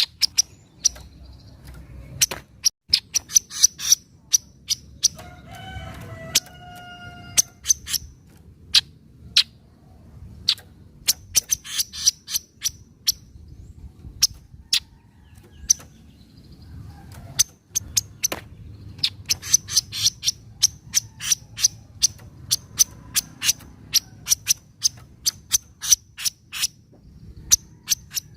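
Kaso-kaso bird (chestnut-capped babbler) giving its sharp 'nyecret' chatter: high, clipped chips in quick runs, broken by short pauses. About six seconds in, a lower, drawn-out call sounds under the chips for a second or two.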